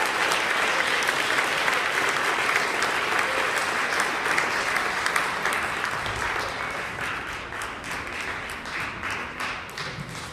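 Audience applauding after an a cappella performance: a dense, steady clapping that thins out into separate claps and fades over the last few seconds.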